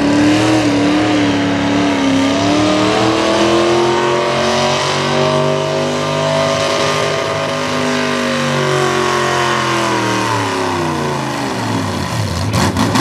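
Farmall hot rod V8 pulling tractor's engine running at high revs under full load, dragging a weight-transfer sled. The engine's pitch climbs through the first half, sags, then falls away near the end as the pull finishes, with a few sharp pops right at the end.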